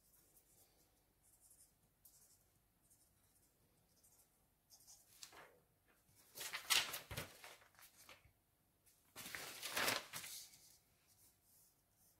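Sheets of paper rustling and sliding on a table as they are moved, in two loud bursts about seven and ten seconds in, after a few faint pen strokes on paper.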